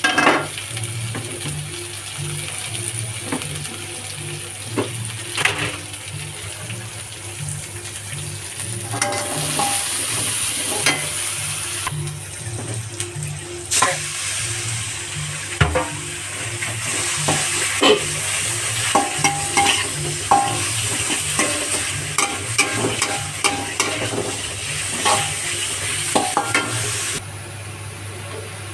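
Chicken stir-frying in a pan, sizzling steadily, with a utensil scraping and knocking against the pan as it is stirred. The sizzle drops away abruptly near the end.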